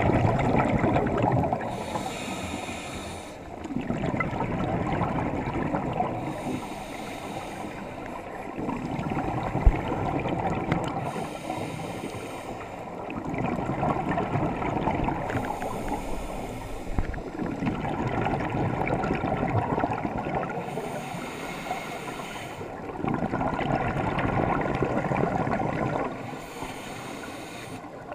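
Scuba regulator breathing underwater: a loud gush of exhaled bubbles about every four to five seconds, with the thinner hiss of an inhalation through the regulator between them.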